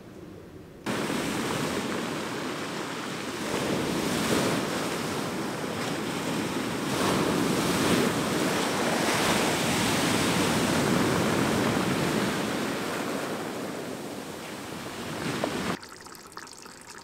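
Surf breaking on a pebble beach: a steady rush of waves that swells and eases several times. It starts suddenly about a second in and cuts off shortly before the end.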